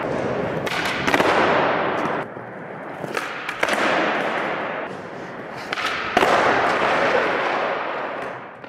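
Skateboard wheels rolling on a smooth floor, broken by sharp clacks of the board popping and landing about a second in, at about three and a half seconds and again past six seconds; the rolling gets louder after each landing.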